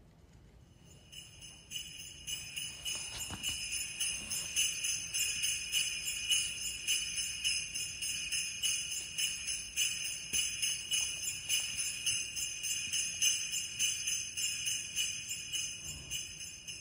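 Jingle bells shaken in a steady rhythm, about two shakes a second, fading in over the first couple of seconds and then holding steady until they stop abruptly at the end.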